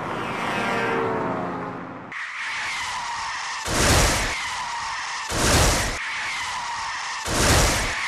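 Added car sound effect: a falling engine-like tone for about two seconds, then a steady tyre-skid screech that swells loudly three times, about every two seconds.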